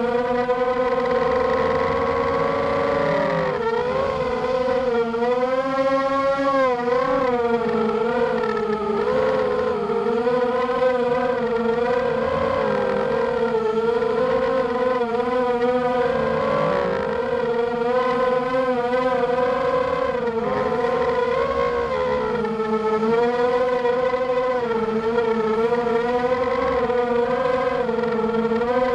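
Brushless motors and 6x4 propellers of a ZMR250 FPV racing quadcopter (Cobra 2206 2100 kV motors on a 4S battery), heard from its onboard camera. A continuous whine that rises and falls in pitch as the throttle changes through the turns.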